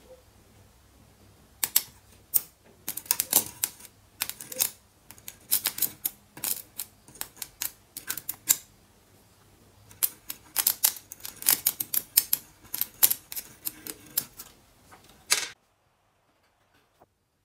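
Homemade ballast arc welder sparking: irregular runs of sharp crackles and snaps as the electrode touches and arcs on the metal, over a faint low electrical hum. The crackling stops abruptly a couple of seconds before the end.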